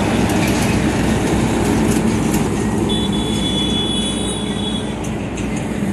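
Heavy lorry driving past, a steady rumble of engine and tyres, with a thin high squeal for a couple of seconds in the middle.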